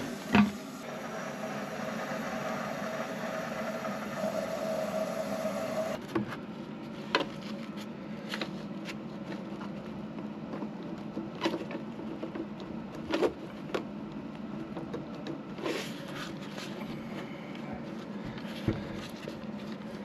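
Water hissing steadily through a newly fitted toilet fill valve as the tank fills, cutting off suddenly about six seconds in as the valve shuts. After that come scattered clicks and knocks of parts being handled.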